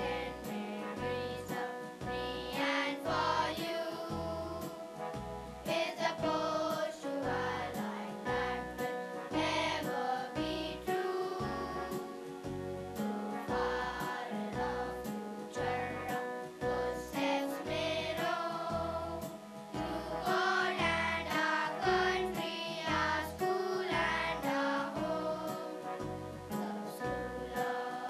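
Children's choir singing in unison into stage microphones over instrumental accompaniment, with a steady beat of about two strikes a second.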